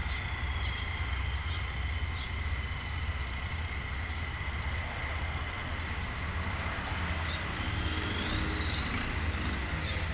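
Diesel locomotive idling at the station: a steady low rumble with a thin, steady high tone above it.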